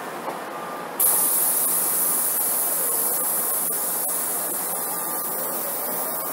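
Electric commuter train: briefly running past, then after a sudden jump in level about a second in, moving slowly along a station platform with a steady high hiss. A faint motor whine glides down in pitch midway and then rises again near the end.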